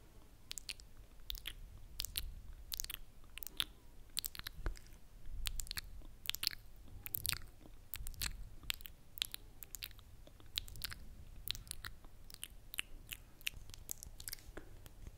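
Close-miked wet mouth sounds: irregular clicks and smacks of lips and tongue, a few a second, made right against the microphone.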